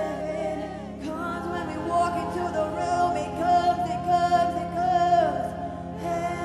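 Live contemporary worship music: women's voices singing long, wavering held notes over a sustained keyboard accompaniment.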